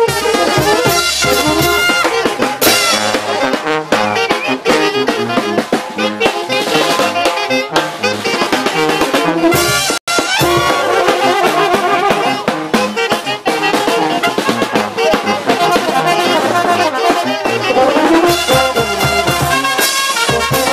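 Brass band playing lively festival dance music, with trumpets over sousaphones and tubas. The sound drops out for an instant about halfway through.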